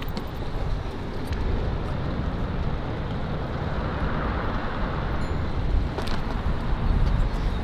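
Steady rumble of city street traffic, with wind buffeting the microphone.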